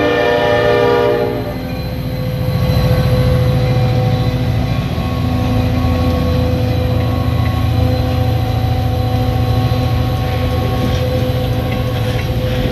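EMD SD40 diesel locomotive's horn sounding and cutting off about a second in. Its 16-cylinder two-stroke engine then runs under load, with the wheels rolling on the rails, as it passes and pulls a train of loaded flatcars up a grade.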